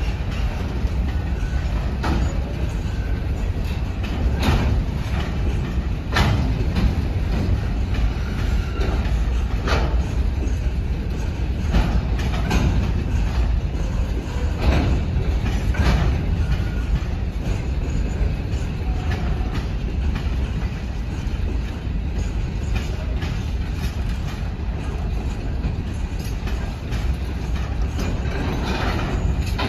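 A train running past: a steady low rumble, with sharp clicks of the wheels over rail joints every second or two.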